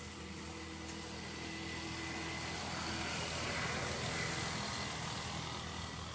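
Motorbikes passing on the road: engine noise that builds to its loudest about four seconds in, then fades.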